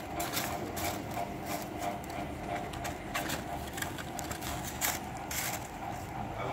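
A dog biting and chewing crisp gupchup (pani puri) shells, an irregular run of crackling crunches, over a steady hum.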